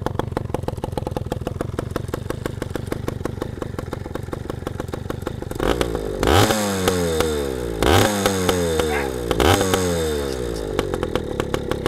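Yamaha PW80's small two-stroke single-cylinder engine idling steadily, then revved three times in the second half, each rev rising sharply and falling back to idle.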